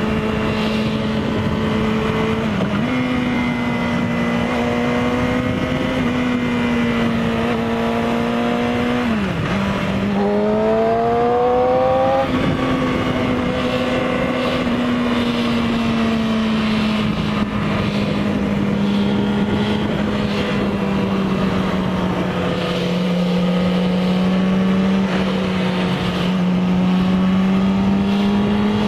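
Engine running steadily with a constant hum, its revs dipping and climbing back about ten seconds in, then sagging slightly and picking up again near the end.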